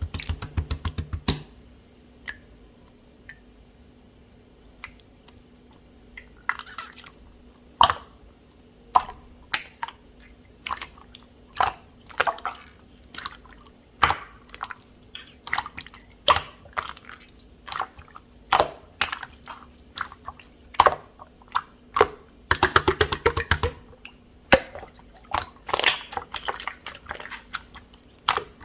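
Clear slime being pressed, folded and stretched by hand, giving irregular sticky clicks and wet pops, with dense crackling runs at the start and again about three-quarters of the way through. A faint steady hum lies underneath.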